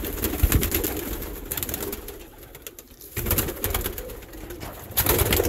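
Domestic pigeons cooing in a loft nest box, with low bumps and rustling close by. The sound dips quieter about two seconds in, then grows louder again.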